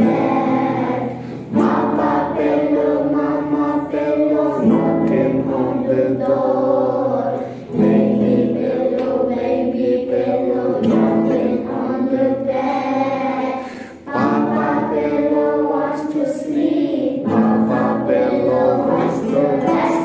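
A group of young children singing a calm, simple song together, with acoustic guitar. The sung phrases stop briefly every few seconds between lines.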